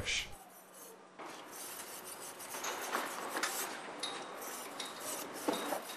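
Round steel wire brush scraping in and out of a drilled hole in concrete, scrubbing the dust that clings to the hole's sidewall. The scraping starts about a second in and goes on in repeated strokes.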